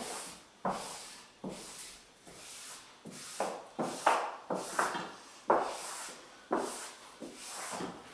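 Hand wiping a self-adhesive peel-and-stick backdrop sheet flat onto a hardboard backboard: a series of rubbing strokes, one or two a second, each starting sharply and fading.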